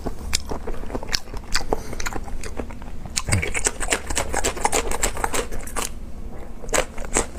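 Biting and chewing a raw green chili pepper, picked up close by a lapel microphone: a steady run of crisp, irregular crunches and wet mouth clicks.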